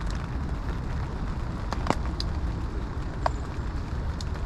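Heavy rain on a bivvy's fabric canopy: a steady hiss with a handful of separate, sharp drop taps.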